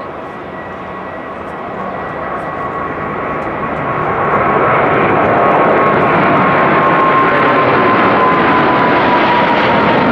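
Rolls-Royce Trent XWB turbofans of an Airbus A350-900 taxiing past: a steady jet whine over a rushing engine noise. It grows louder over the first four seconds, then holds, and its high tone slides slowly down in pitch.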